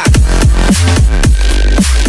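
Loud electronic background music with a heavy bass line and repeated falling swoops in pitch.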